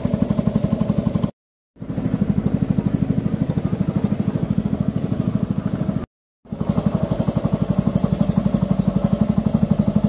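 Small boat motor running steadily with a fast, even beat, cut off twice by brief dropouts to silence.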